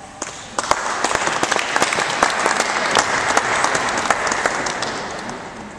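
Crowd applauding: many hands clapping, starting about half a second in and dying away near the end.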